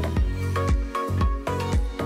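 Background music with a steady electronic beat.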